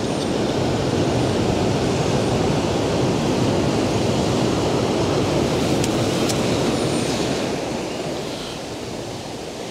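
Surf breaking and washing over the boulders of a rocky shoreline: a loud, rushing wash that swells and then eases off over the last couple of seconds. A couple of faint clicks come about six seconds in.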